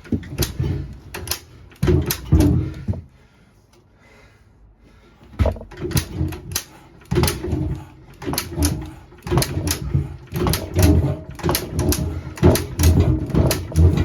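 JAP Model 5 single-cylinder engine on a 1947 Clifford rotovator being cranked over in a start attempt: a run of sharp knocks and heavy thuds, about two or three a second, with a pause of about two seconds near three seconds in. It fires a couple of times but does not keep running.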